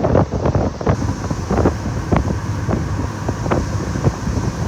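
Car cabin noise at highway speed: steady road and wind noise with irregular knocks, and under it the faint drone of a periodical cicada chorus outside.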